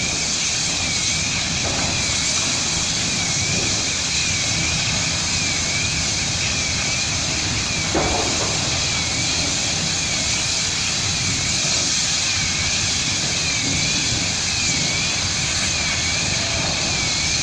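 A large building fire burning with a steady rushing noise. Over it, a faint warbling tone rises and falls about once a second, like a distant siren or alarm, and there is a single sharp knock about eight seconds in.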